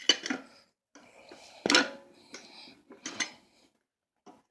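Metal clanking of a pry bar against a jammed NP208 transfer case as the stuck case halves are worked apart. There are three sharp clanks, the loudest about midway, and a faint tap near the end.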